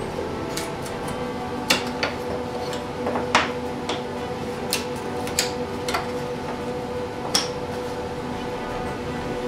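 Thin laser-cut plywood parts clacking and tapping against each other and the plywood bench as they are handled: about a dozen sharp wooden knocks at irregular intervals, over a steady background drone.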